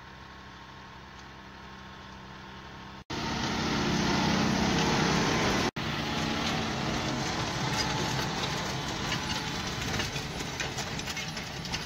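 John Deere tractor's diesel engine running steadily as it pulls a Pöttinger seed drill over tilled soil. It is faint and distant for the first three seconds, then much louder and closer after an abrupt cut, with another brief cut a few seconds later.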